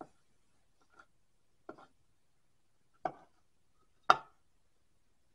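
Wire clippers snipping resistor leads flush to the solder joints on a circuit board: about five sharp clicks at uneven intervals, the last, about four seconds in, the loudest.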